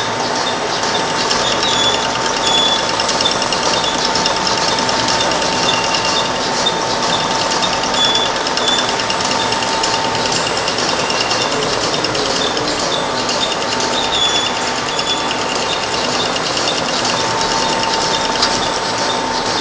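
Wet-mop making machine running steadily, its industrial sewing heads stitching tape across rows of mop yarn: a fast, even clatter over a constant whine.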